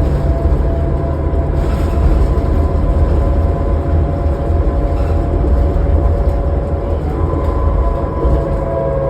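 Inside a 2005 New Flyer D40LF diesel transit bus under way: heavy, steady engine and road rumble with a high, held howling whine over it that shifts a little in pitch and grows stronger near the end.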